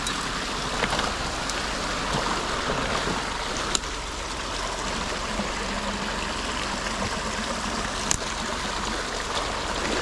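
Water running steadily as a small stream spills through a beaver dam of sticks and mud, with about three light clicks.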